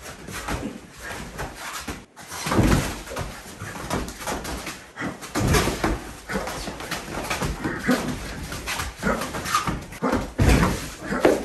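Two people grappling and scuffling at close quarters: feet shuffling, bodies and padded gear bumping, with grunts and hard breathing, and several louder thumps.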